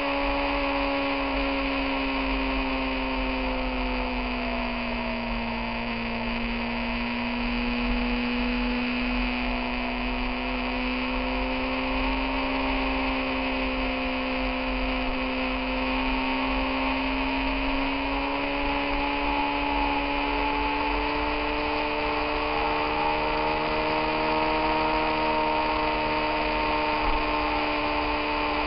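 Motorcycle engine running at a steady cruise, its note dipping slightly a few seconds in and rising gently in the second half, over a steady hiss of wind.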